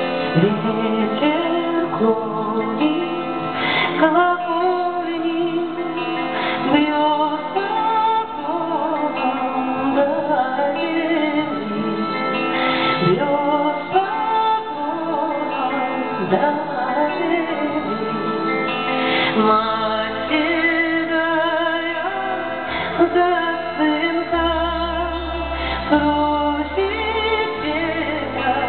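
A woman singing a song with band accompaniment; a deep bass line comes in about two-thirds of the way through.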